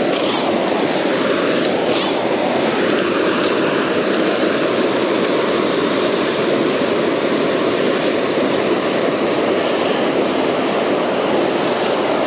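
Fast river current rushing steadily over a rocky riffle, the river running high and heavy with water released from a dam.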